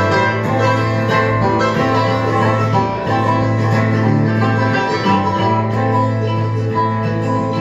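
Live acoustic string band playing a bluegrass-style tune: strummed acoustic guitar and picked banjo, with other plucked strings, keeping a steady beat.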